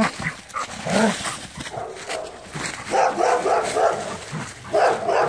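A dog whining, with low grumbling moans and short yips in several separate calls.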